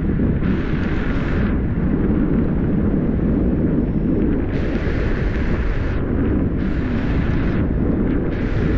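Wind buffeting the microphone on a moving vehicle: a loud, steady low rumble, with stretches of hiss that come and go every second or two.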